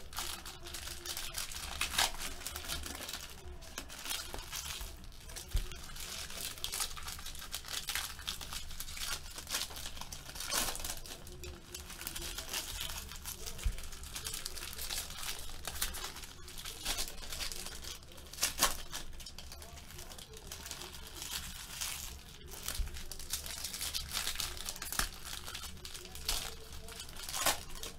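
Crinkling and rustling of card packaging and plastic as sports trading cards are handled and sorted, with irregular small crackles and clicks throughout and a few louder ones.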